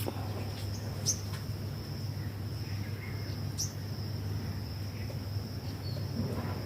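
Insect trilling steadily in the garden on a high, even pitch, with a few short chirps about one and three and a half seconds in, over a low steady hum.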